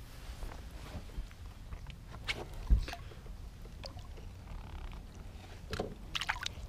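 Light water splashes and sloshing as a bass is lowered over the side of a boat by hand and released into the lake, with a single dull thump a little before the middle and a quick flurry of splashes near the end.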